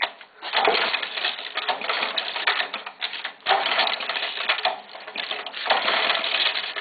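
Small single-cylinder lawn mower engine, a 7 hp Briggs & Stratton, being turned over as it is started. It makes a rapid, loud clattering that comes in bursts, with short breaks about three and five seconds in.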